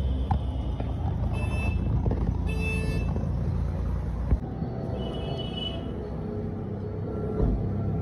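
Steady low rumble of car-workshop noise, with short high tones about one and a half, two and a half and five seconds in, and a single sharp knock a little past four seconds.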